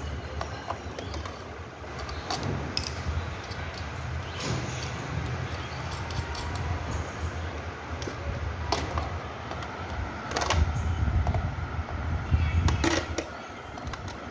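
Scattered light clicks and knocks from handling the metal parts of a ceiling fan during assembly, over a steady low rumble.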